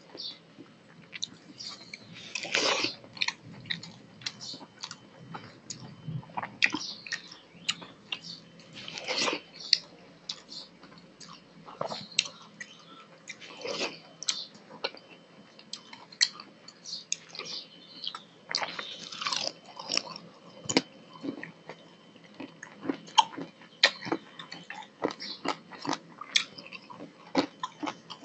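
Close-miked mouth sounds of a person eating rice and fish curry by hand: wet chewing with irregular lip smacks and clicks several times a second, and a few longer, louder mouth noises.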